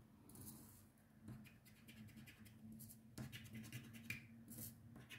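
Faint scratching of a scratch-off lottery card, in short irregular strokes.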